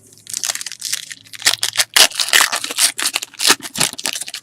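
Crinkling and rustling of a trading-card pack wrapper being handled and torn open, in many quick irregular crackles.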